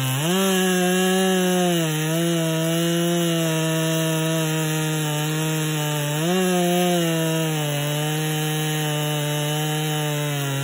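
Ported Solo 681 single-cylinder two-stroke chainsaw at full throttle cutting through a thick log, the engine pulling steadily under load. Its pitch climbs briefly about a third of a second in and again about six seconds in, then settles back down as the chain bites.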